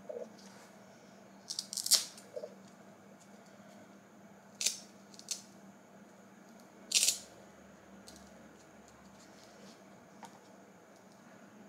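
AURA Strap for Apple Watch being pulled, adjusted and fastened on a wrist: a few short scratchy rustles and clicks spread out, the loudest about two seconds in.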